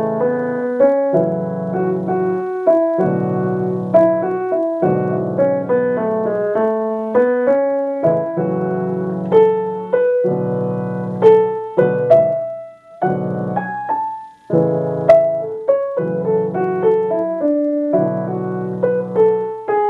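Piano improvisation over a I–vi–ii–V chord progression in A major: left-hand chords under a right-hand melody drawn from the pentatonic scale, with two short breaks between phrases in the second half.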